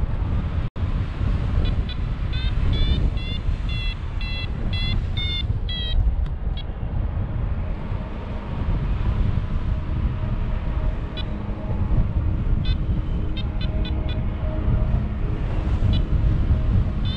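Paragliding variometer beeping in quick short pulses, the climb tone that signals the glider is rising in lift, in two spells over a steady rush of wind on the microphone.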